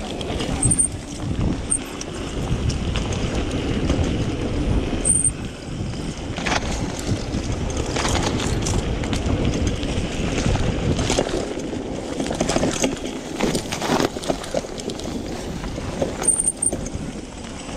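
Wind rumbling on the microphone of a rigid bicycle being ridden over dirt singletrack, mixed with the rolling noise of the tyres on the trail. The bike knocks and rattles often over bumps.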